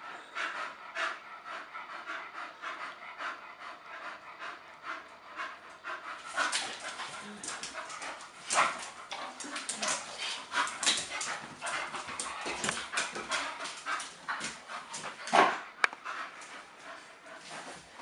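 A dog panting fast and hard, in quick breathy strokes that grow louder and busier about six seconds in.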